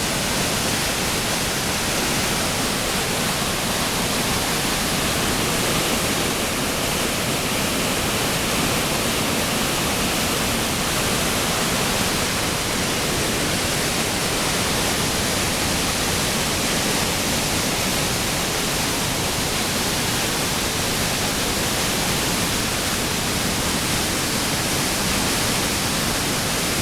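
Upper Falls of the Yellowstone River roaring at close range from the brink: a loud, steady rush of water pouring over the edge. The full spring-like flow makes it powerful.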